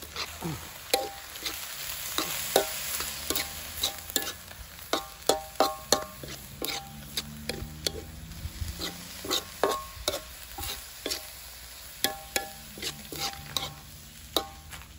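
A metal spoon stirring minced pork in a soot-blackened wok: irregular scrapes and clinks against the pan, a few a second, many with a short metallic ring, over a soft frying sizzle.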